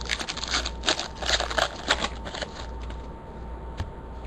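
Handling noise: a quick run of small clicks and rustles over the first two and a half seconds, then quieter, with a faint knock near the end.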